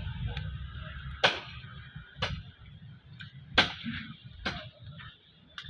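Sharp plastic clicks and knocks, about one a second and the loudest about three and a half seconds in, from hands working the parts of a car fuel pump assembly, over a low steady rumble.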